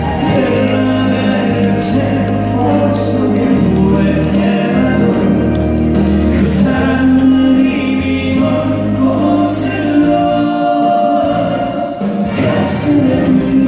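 Song performed live: loud music with singing over it, with steady bass and held notes.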